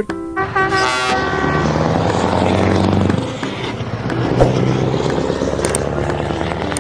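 Large diesel box truck driving past on a road, engine and tyre noise loudest as it goes by, then easing off as it moves away.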